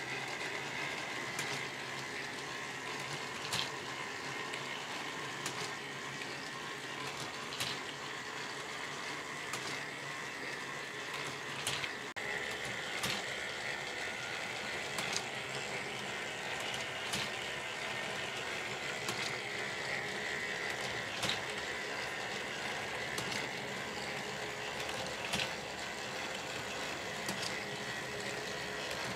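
K'NEX plastic machine driven by a single electric motor, running: a steady whirr and rattle of plastic gears and rods, with a sharp click about every two seconds.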